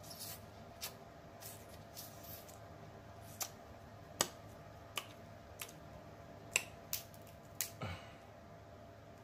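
Close-up eating sounds from a crab-leg and sausage seafood boil: about a dozen sharp, irregular clicks and smacks of lips, licked fingers and shell, one near the end with a duller thud to it.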